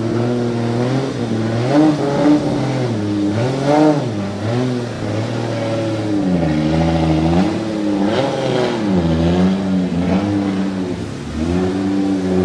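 Toyota GT86 with a swapped-in single-turbo 2JZ straight-six, stationary and being free-revved. The engine note climbs and falls in a series of revs, then holds steadier near the end.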